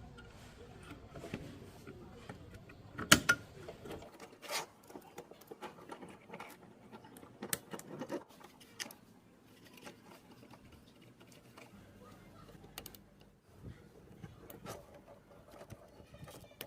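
Scattered clicks and light knocks from small parts and tools being handled during a cassette player repair, with a sharp double knock about three seconds in. A low hum stops about four seconds in.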